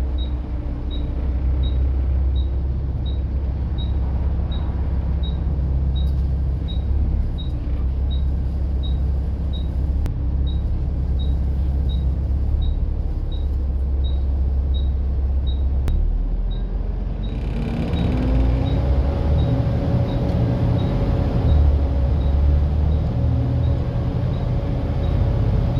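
Volvo B7TL bus's engine running with its hoovering sound: a steady low drone, then about 17 seconds in the note changes and a whine rises and holds. Under it, a faint tick repeats roughly every three-quarters of a second.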